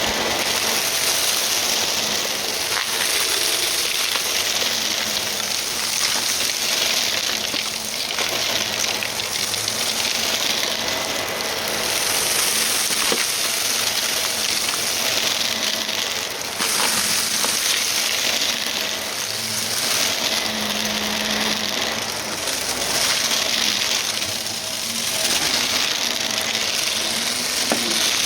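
Vacuum cleaner running with its brushroll spinning: a steady hissing rush of suction with a continuous crackle of small debris crunching as it is picked up.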